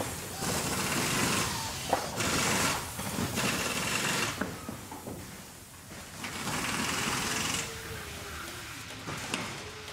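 Factory production machinery running, with repeated bursts of hissing about a second long, knocks and clanks, and a wavering hum near the end.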